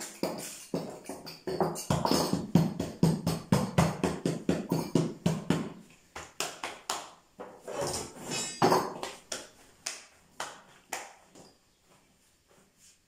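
Slim wooden rolling pin clacking and rolling in quick strokes against a wooden board as thin dough is rolled out, about four or five knocks a second. In the second half the knocks come more sparsely while the dough sheet is lifted and stretched over the board, and they die away near the end.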